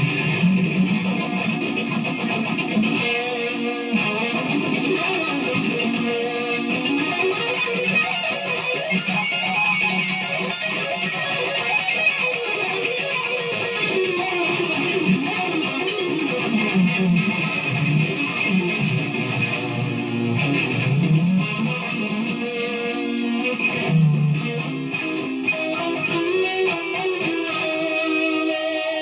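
Death metal playing from a vinyl record: distorted electric guitars over bass and drums, at a steady loud level.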